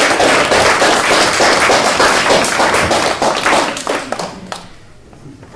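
Audience applauding: many hands clapping at once, dying away about four and a half seconds in.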